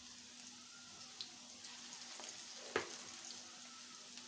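Gram-flour pakoras deep-frying in hot oil in a kadhai: a soft, steady sizzle with fine crackles. A single sharp knock comes about three seconds in.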